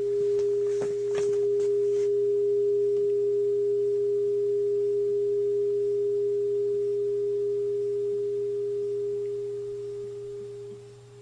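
Steady pure tone of about 440 Hz from a loudspeaker driving a pipe. It fades over the last few seconds as the quarter-wave resonator side branch is lengthened toward the length that cancels that frequency. A few light knocks in the first two seconds.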